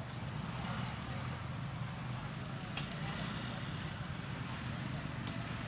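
A motor vehicle engine running steadily at a low pitch, with one sharp click about three seconds in.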